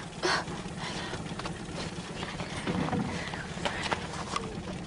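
Quiet water noise around a small boat, with a few light knocks and clicks scattered through it.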